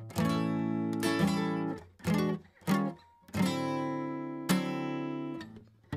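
Background music: an acoustic guitar strumming chords, each ringing out and fading, with brief pauses and a few quick single notes in the middle.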